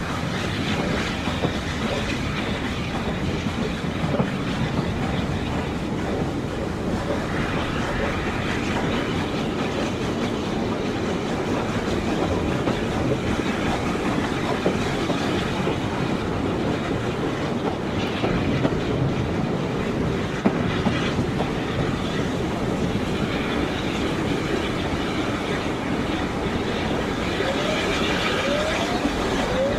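Passenger carriage of a steam-hauled heritage train heard from on board while running: a steady rumble of wheels on track, with occasional clicks over rail joints. A few short rising squeals come near the end.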